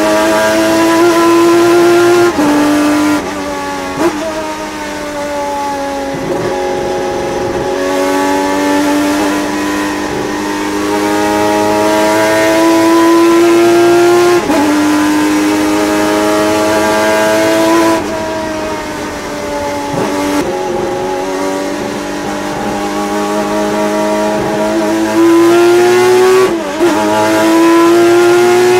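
Turismo Carretera race car's engine at full throttle on track, heard onboard: the note climbs steadily through each gear and drops sharply at each upshift, several times, with a falling stretch where it comes off the throttle.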